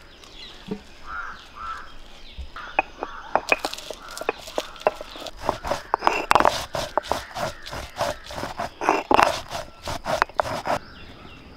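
Stone roller crushing dried red chillies and whole spices on a stone grinding slab (sil-batta): a quick, irregular run of sharp stone-on-stone knocks and grinding that starts about three seconds in and stops near the end.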